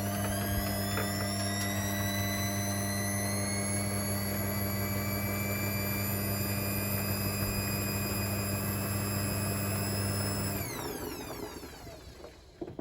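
Hoover H3W69TME washing machine spinning: the drum motor's whine rises over the first few seconds, then holds over a steady drain-pump hum. Near the end the pump cuts out and the motor winds down, its whine falling.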